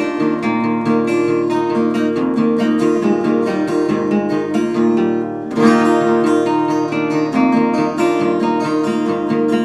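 Acoustic guitar strumming chords in a steady rhythm, with a short break about five and a half seconds in before the next hard strum.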